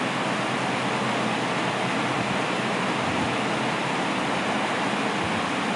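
Steady, constant hiss of background noise with no other event standing out.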